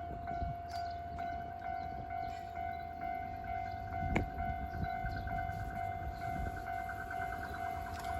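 Japanese level-crossing warning bell ringing steadily over the low rumble of the passing Salon Car Mizuho train, with a sharp wheel clack about four seconds in.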